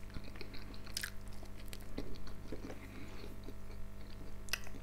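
A person chewing a mouthful of boiled pelmeni and bread close to the microphone. There are two sharp clicks, about a second in and near the end; the later one matches a metal fork going into a ceramic bowl. A faint steady electrical hum sits underneath.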